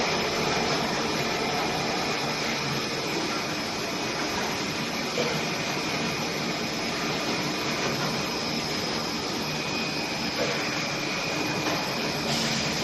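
Steady whirring machine noise with a hiss and faint steady hum tones, and a few light ticks.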